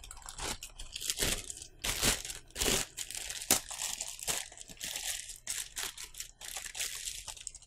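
Clear plastic wrapping crinkling and crackling as it is pulled and torn open by hand around a figure, in quick irregular rustles that stop suddenly at the end.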